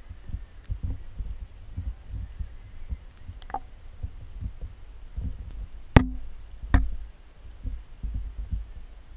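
Irregular low thumps and rumbles, like handling noise on a camera being moved about, with two sharp clicks about six and seven seconds in, the first the loudest.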